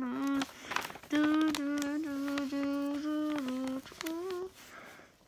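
A person humming a few long, steady notes with short breaks between them, stopping about four and a half seconds in, with light crinkles of paper being handled.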